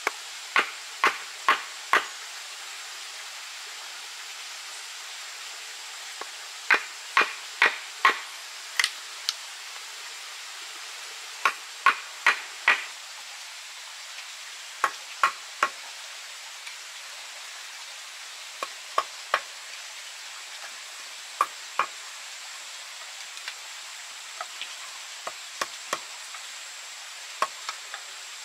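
Wooden mallet striking a chisel to cut a mortise into a log: sharp knocks in runs of three or four, with pauses of a few seconds between runs and a few lighter taps near the end, over a steady background hiss.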